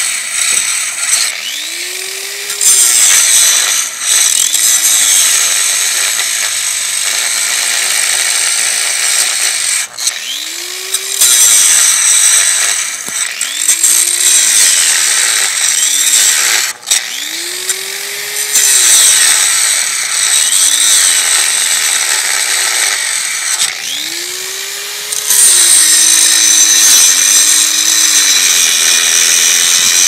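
Ryobi angle grinder cutting through a bike lock: a loud, high-pitched grinding screech, with the motor's pitch sagging and recovering again and again as the disc bites into the metal.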